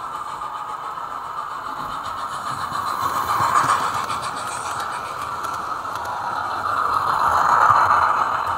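OO-gauge model trains running past on the track, a steady running noise that grows louder twice as a train passes close by: first a rake of maroon coaches, then a Bulleid rebuilt West Country class Pacific steam locomotive with its coaches.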